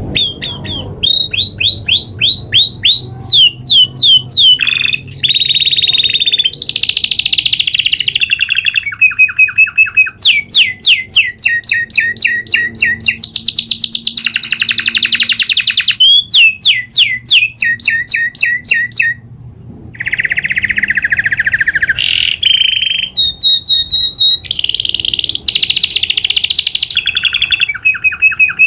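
Domestic canary singing a long rolling song: fast trills of repeated notes, moving to a new phrase at a different pitch and speed every second or two, with one brief break about two-thirds of the way through.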